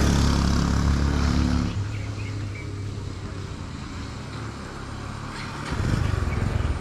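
A motor vehicle engine runs with a steady hum that drops away about two seconds in, leaving a low rumble; a louder low rumble rises near the end.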